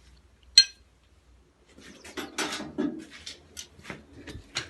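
A single ringing hammer blow on steel at the anvil about half a second in, then from about two seconds a run of lighter, irregular metallic taps and clinks.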